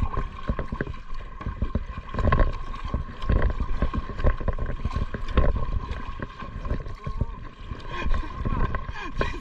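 Kayak paddles dipping and splashing in lake water in irregular strokes, with low thumps.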